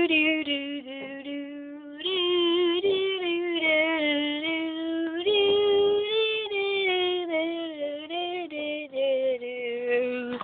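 A high voice singing a wordless tune in long held notes that step up and down.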